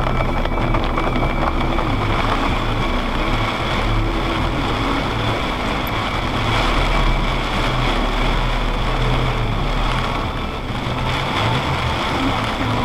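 Steady car running noise, engine rumble and tyre hiss on a wet road, picked up by a dashcam's microphone.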